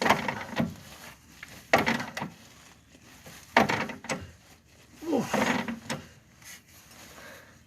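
Four separate clunks of hand-tool work on a stuck bolt in the car's rear suspension, each a sharp knock that fades over about a second, spaced roughly two seconds apart.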